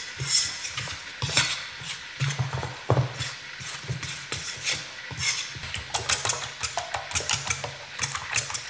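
A fork scraping and tapping as it stirs seasoning through tapioca starch in a round metal pan. About two-thirds of the way in it gives way to a fork beating eggs in a second pan, with quick clicks against the pan. Behind it is the hail-like crackle of butter browning in a pan.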